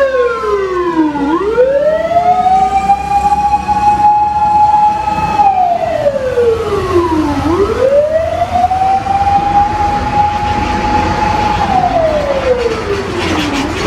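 Japanese fire engine's siren on an emergency run, wailing in long cycles. The pitch falls slowly, sweeps quickly back up and holds a high steady tone for about four seconds, then falls again, twice over, with engine rumble underneath.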